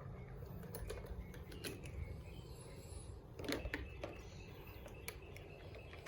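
Light clicks and taps of small plastic toy pieces being handled and put in place, with a short cluster of louder knocks about halfway through.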